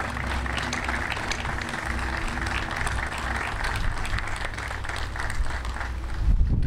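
Audience applauding, the clapping thinning out toward the end. A low rumble comes in just before the end.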